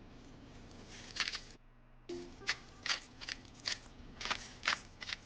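A knife cutting through raw kohlrabi on a board: a series of short, crisp slicing strokes, about two to three a second.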